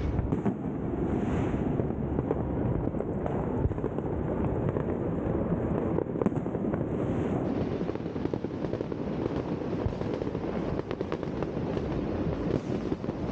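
New Year's Eve fireworks going off: a dense, continuous crackle and popping of many sharp cracks over a steady low rumble.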